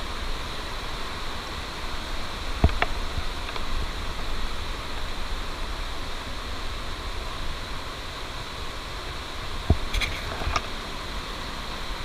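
Mountain stream rushing over rocks in small cascades, a steady rush of water. Two short sharp knocks cut through it, about two and a half and ten seconds in.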